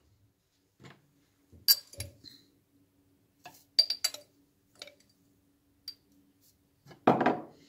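Several light, scattered clinks of a metal spoon against a small glass spice jar as dried thyme is spooned out of it, over a faint steady hum.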